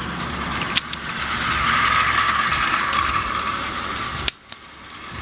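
Battery-powered Plarail toy steam locomotive's small electric motor and plastic gearbox whirring steadily with its wheels spinning freely off the track, with a sharp click just under a second in; the whir cuts off abruptly about four seconds in.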